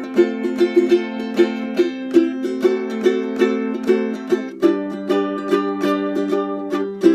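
Kala KA-8 eight-string tenor ukulele being played: chords with frequent sharp plucked attacks, changing to a new chord about two-thirds of the way through.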